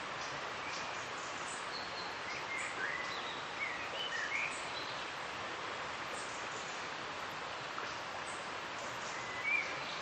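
Steady rushing of a river, with small birds chirping over it: a cluster of short chirps in the first half and one more near the end.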